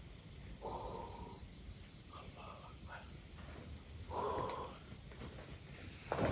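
Night insects, crickets, chirping steadily in a high pulsing trill of about five pulses a second over a steady high drone. Two short, soft, low sounds come about a second in and again about four seconds in.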